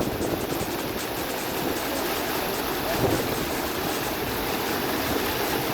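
Swollen river in flood, its water rushing past steadily.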